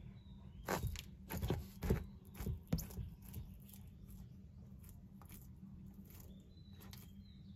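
Gidgee skink chewing an insect: a quick run of sharp crunches in the first three seconds, thinning to fainter, sparser clicks.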